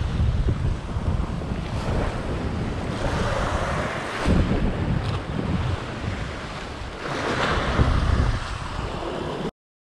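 Sea waves breaking and washing over shore rocks, with wind buffeting the microphone as a deep rumble. Two louder surges of surf come about a third of the way in and again near the end. The sound then cuts off suddenly.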